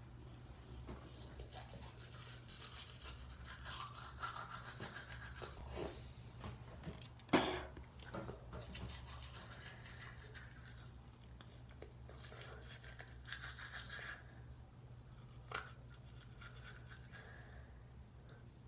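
Toothbrush scrubbing teeth in quick, uneven back-and-forth strokes, with a sharp knock about seven seconds in and a smaller one near the end. A steady low hum runs underneath.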